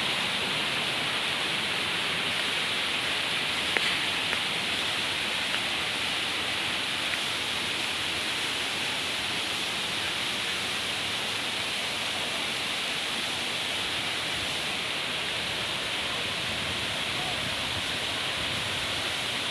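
Steady rush of water falling over a waterfall's rocks, a continuous even hiss.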